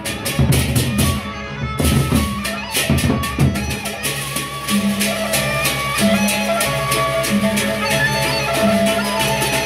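Lombok gendang beleq ensemble playing: large barrel drums beaten with sticks, with hand cymbals clashing densely over them. The drum strokes are heaviest in the first few seconds, after which a steady repeating rhythm of pitched notes carries on.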